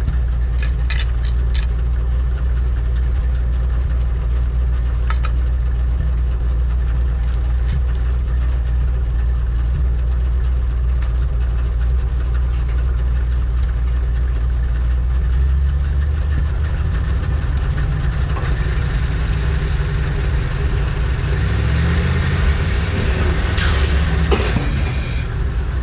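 Side-loader log truck's engine idling steadily, then running up in speed about two thirds of the way through as the loader lifts a log onto the truck. A few light clinks near the start and a brief loud noisy burst near the end.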